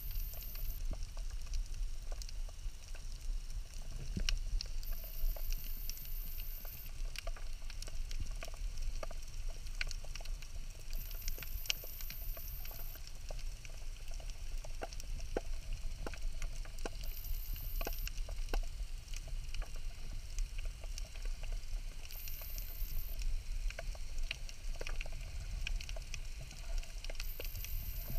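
Underwater ambience over a rocky seabed: a steady, irregular crackle of many small clicks over a low rumble. A faint high-pitched tone lasting a second or two sounds about every five seconds.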